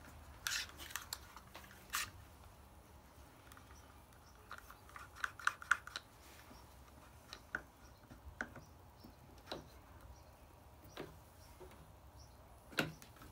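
Light plastic clicks and taps from quick-grip bar clamps being handled and fitted, in two quick clusters and then single ticks every second or so.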